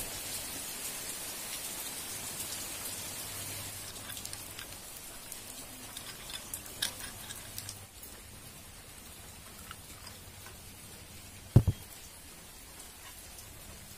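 Steady rain falling, with a few scattered light clicks and one loud thump near the end.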